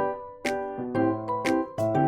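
Cheerful background piano music with a steady beat.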